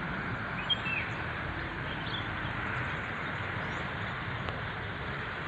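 Steady outdoor background noise with a few short bird chirps about a second in.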